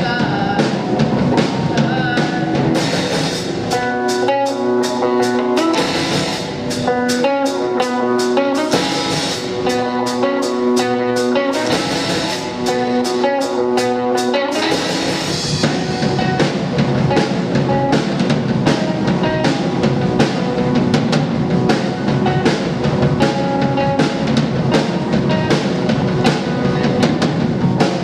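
Live rock band playing an instrumental passage on drum kit and guitar. Through the first half, repeated guitar notes ride over steady, evenly spaced drum hits with little bass; about halfway in, the full band comes back in with a heavier, fuller sound.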